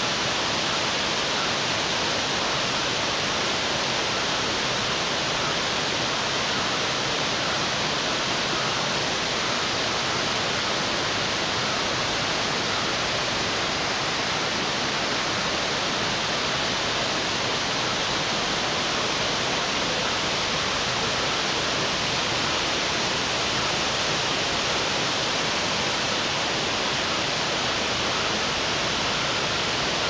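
Waterfall pouring down a rock face: a steady, unbroken rush of falling water with a bright hiss.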